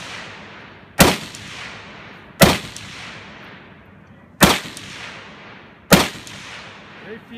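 An FAL-pattern battle rifle fires four single shots about one and a half to two seconds apart. Each loud crack is followed by a long fading echo.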